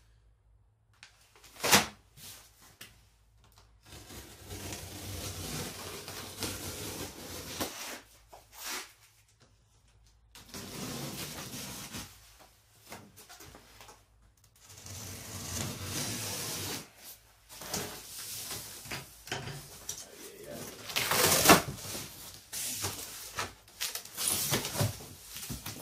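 Handling noise from a large cardboard shipping box being unpacked: a sharp snap about two seconds in, then irregular stretches of rustling and scraping of cardboard and plastic with short quiet gaps. The loudest rustle comes about three-quarters of the way through, as the box flaps are pulled open over polystyrene packing.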